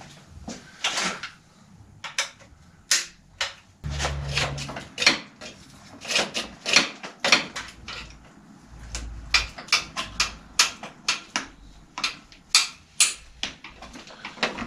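Irregular sharp metallic clicks and knocks, often several a second, from a tool working the clamp of a child-seat mounting on a bicycle's seat post, with two dull low thumps about four and nine seconds in.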